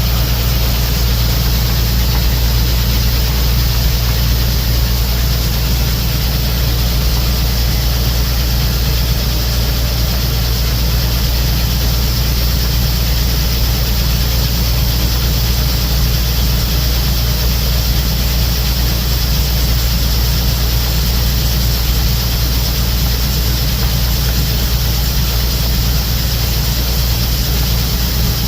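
Gleaner M2 combine running steadily: a loud, constant, deep engine drone with an even hiss above it, unchanging throughout.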